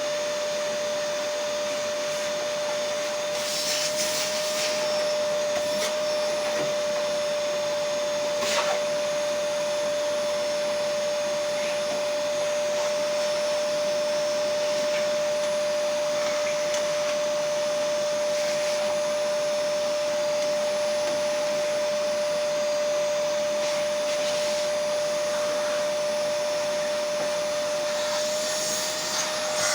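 An electric motor runs steadily, moving air with a rushing sound and a constant whine. A few brief clicks and rattles sound over it.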